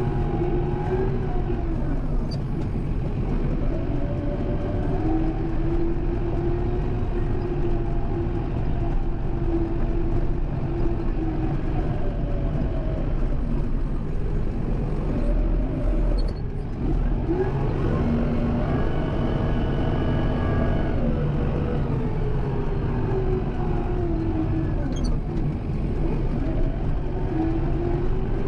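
Kubota M7060 tractor's four-cylinder diesel engine running while plowing snow, its pitch rising and falling repeatedly as the revs change, with a brief drop about halfway through.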